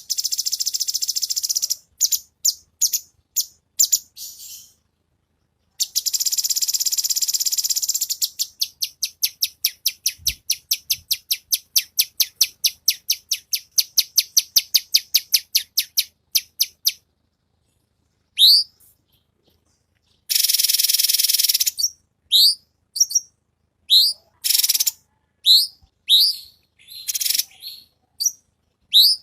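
Cucak cungkok singing in rapid bursts: fast, dry, very high rattling trills, then a run of short, sharply rising whistled notes repeated close together, broken by brief pauses. This is the rapid 'shooting' song prized in a gacor bird.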